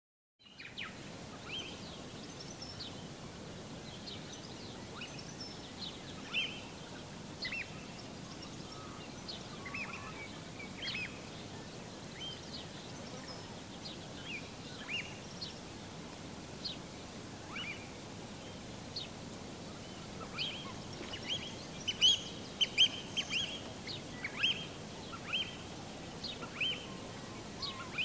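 Steady ocean-surf background with many short, high bird chirps scattered over it, busiest and loudest a little after twenty seconds in.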